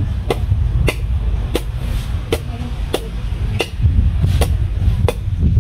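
Machete chopping into the husk of a green coconut in steady strokes, about three every two seconds, over a steady low rumble.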